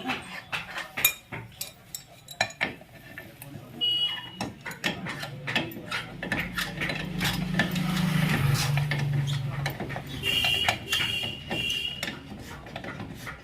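Metal hand tools and brake parts clinking and clicking as they are handled, with a short high squeak-like tone about four seconds in and a longer one near the end.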